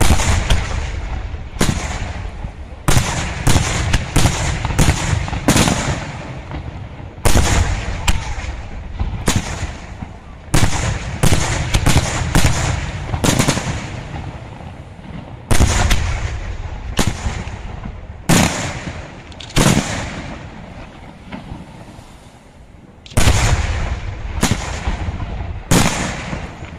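Aerial firework shells bursting one after another in an irregular barrage of sharp bangs, each trailing off in a low echo. The bangs thin out about twenty seconds in, then a fresh volley starts a few seconds later.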